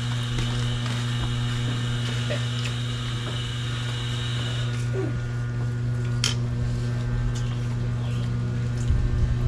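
Steady low mechanical hum, with a thin high whine that stops about halfway through and a few faint clicks.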